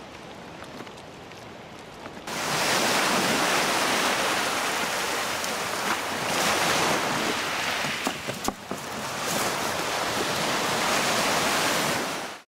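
Waves breaking and washing up a pebble beach: a loud, steady rush of surf that starts suddenly about two seconds in and cuts off just before the end. Before it, quieter open water with a few faint clicks.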